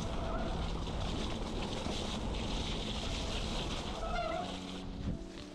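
Mountain bike riding fast down a leafy dirt trail: wind rushing over the camera microphone, with tyre and frame rattle over the ground. There is a short squeak about four seconds in. Near the end the ride noise drops and music begins.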